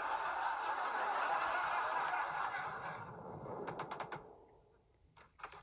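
Studio audience laughing, the laughter fading away after about three seconds. A few sharp knocks on a wooden door follow near the end.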